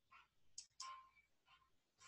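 Near silence: faint room tone with a few soft, short clicks.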